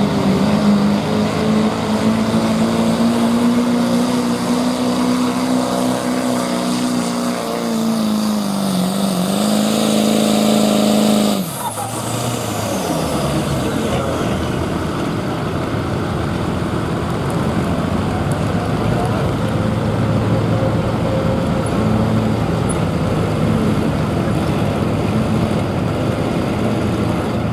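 Diesel 4x4 pickup truck from the 2.5-inch turbo diesel class pulling a sled at full throttle, its engine holding a steady high-revving note that sags briefly. About eleven seconds in the throttle is lifted: the sound drops sharply, a high whistle falls away over a couple of seconds, and the engine settles to a lower, steadier run.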